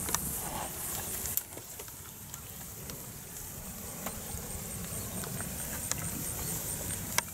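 Cattle moving about: scattered sharp hoof knocks and rustling over a steady low rumble.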